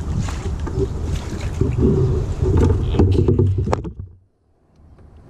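A small paddled boat at work: knocks and handling noise against the hull, with wind rumbling on the microphone. The sound drops almost to silence about four seconds in.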